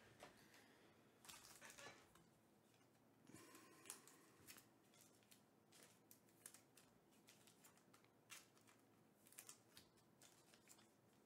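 Faint, irregular rustling and light clicks of trading cards being handled and sorted, at a very low level.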